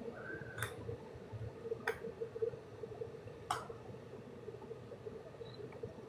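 Quiet room noise with a faint steady hum and three short, sharp clicks in the first few seconds.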